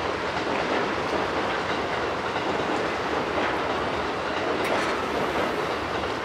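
Keikyu commuter train running on the track at the station: a steady rumble of wheels on rails, with a few faint clicks.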